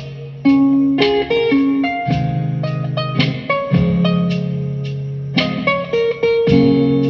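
Mellow instrumental guitar music: plucked notes and chords ringing out over long-held low bass notes, several notes a second.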